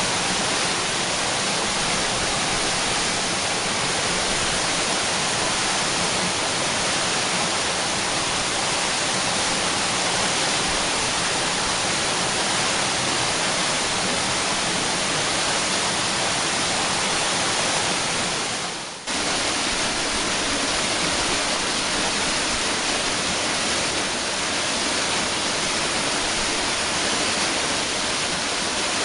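Waterfall: a steady, loud rush of falling water, broken only by a momentary drop about two-thirds of the way through before resuming.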